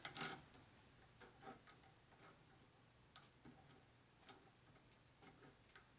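Near silence with a few faint, scattered clicks of fork parts being handled while a screw is started by hand.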